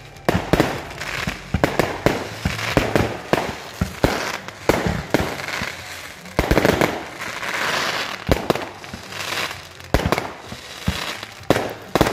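Fireworks going off: a rapid, uneven string of sharp bangs and crackles, with a hissing rush that is strongest about six to eight seconds in.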